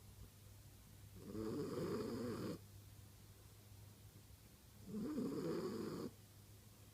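French bulldog snoring in her sleep, the noisy breathing typical of the breed's flat-faced airway. Two snores, each a second or so long, one about a second in and one about five seconds in.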